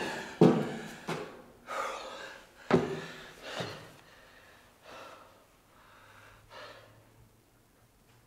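A man gasping and panting for breath after climbing many flights of stairs: four heavy gasps in the first few seconds, then fainter breaths that die away.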